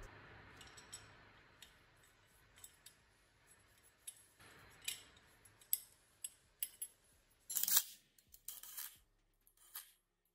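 Light metallic clicks and clinks of bolts being fitted by hand through a steel chain sprocket and its hub, scattered through the second half and loudest about three-quarters of the way in.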